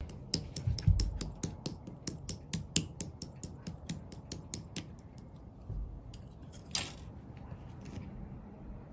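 Slime being squeezed and poked by hand, making a quick run of small clicking pops, about four or five a second, that stops after about five seconds; a single louder squish follows near the end.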